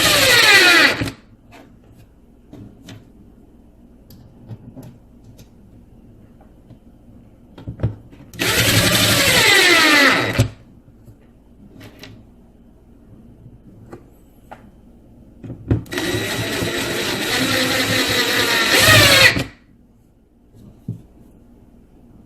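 Power drill driving wood screws into holes that are not pre-drilled, in runs of a few seconds, its motor whine sliding in pitch as it works. One run ends about a second in, a second comes near the middle, and a longer third follows later, with light clicks of handling between.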